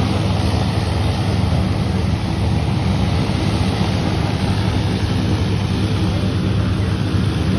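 Propeller aircraft engine running with a steady low drone.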